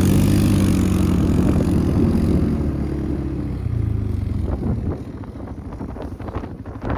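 ATV engine running steadily, its sound fading out after about four seconds and giving way to wind buffeting the microphone.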